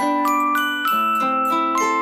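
Background music: a melody of struck notes, with a low bass line coming in about a second in.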